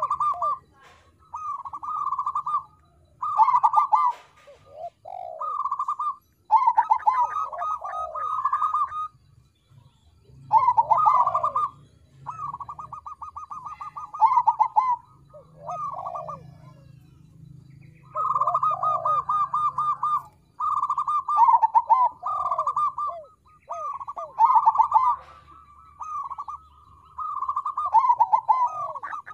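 Zebra dove of the perkutut crossing type (a cross of local and Bangkok perkutut) singing: a run of rapid, trilled cooing phrases, each one to two seconds long, with short breaks between them.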